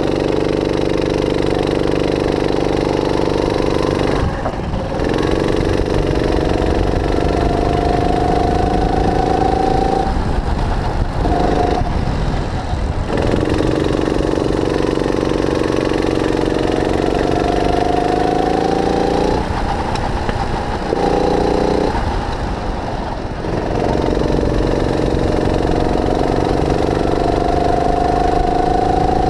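Onboard sound of a 270cc, 9 hp four-stroke kart engine at full throttle. Its note climbs slowly along the straights, with a rising whine on top, and it drops off briefly three times as the throttle is lifted for corners.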